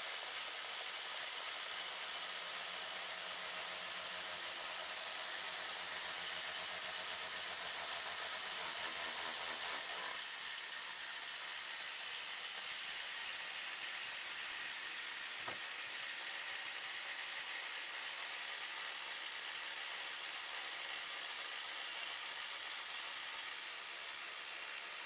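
Two 12-volt cordless ratchets, a Makita CXT and a Milwaukee M12 Fuel extended, running together, their motors whining steadily as they spin nuts along threaded rod. About ten seconds in, a lower hum drops out and the slower Milwaukee runs on alone.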